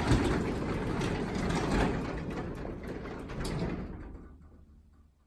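Craftsman 3/4 horsepower belt-drive garage door opener running as it closes the garage door. The sound fades and stops about four and a half seconds in as the door reaches the floor.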